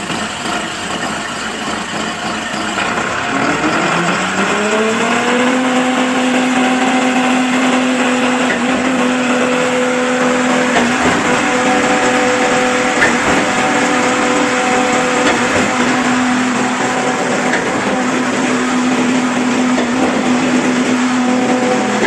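Trailer-mounted concrete pump's engine running, its pitch rising over a couple of seconds about four seconds in as it speeds up, then holding at a steady higher speed.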